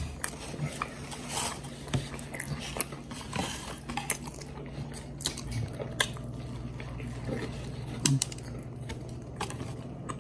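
People eating cheeseburgers and fries: chewing and biting, with scattered small clicks and knocks of cutlery and dishes over a low steady hum.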